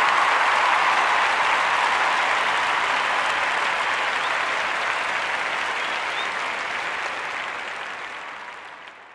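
Audience applause after a drum solo, fading out over the last few seconds.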